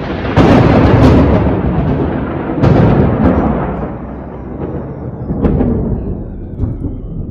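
Thunder: two loud claps, the first under half a second in and the second near three seconds, each rumbling away over a couple of seconds with smaller cracks after.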